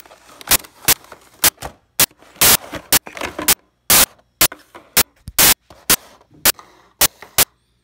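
Cardboard box and plastic packaging being handled and pried open one-handed: an irregular run of sharp clicks, cracks and crinkles as a diecast model plane is worked out of its box.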